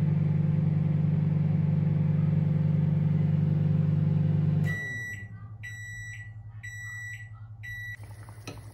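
Microwave oven running with a steady low hum that stops a little over halfway through, followed by four high beeps marking the end of its cycle. Near the end, a pot on the hob is heard bubbling faintly.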